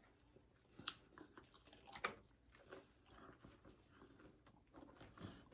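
Faint chewing and biting of loaded nachos, with a few scattered soft crunches of tortilla chips, the clearest about two seconds in.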